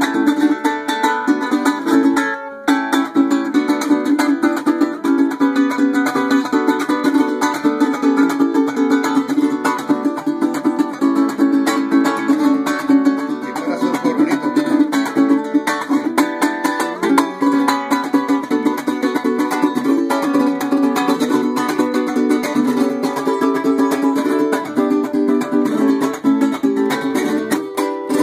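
Concert cuatro, a small four-string instrument with a red cedar top, strummed in a steady run of chords, with a brief break about two and a half seconds in.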